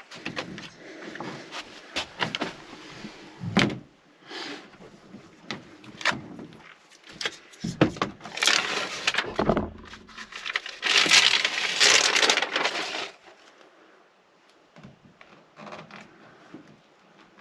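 Foil-backed sound-deadener sheets being handled and pressed onto a van's sheet-metal sliding door: irregular crinkling and rustling, loudest in two long stretches past the middle, with a few sharp knocks against the metal.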